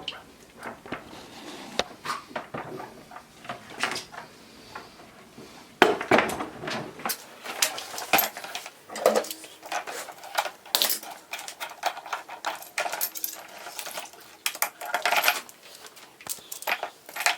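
Hard parts clinking and knocking as hoses and fittings are handled: a run of small knocks and clicks, busier from about six seconds in.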